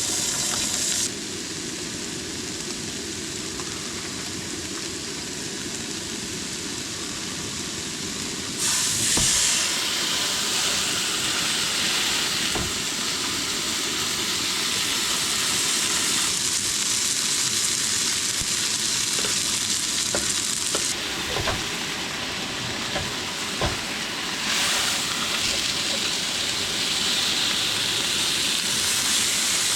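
Potatoes O'Brien frying in butter on an aluminum cooktop over a propane burner, sizzling steadily, with the burner's low steady rush underneath. The sizzle jumps in level a few times, and a few light clicks sound over it.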